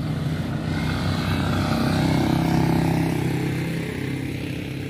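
A motor vehicle passing on the road, its engine drone swelling to a peak about halfway through and then fading.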